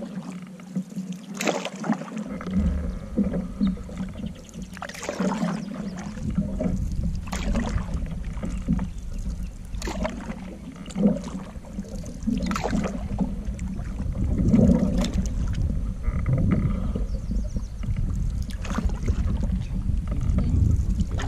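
Canoe paddles dipping and pulling through river water, one splashy stroke every two to three seconds. A low steady rumble of wind on the microphone runs underneath.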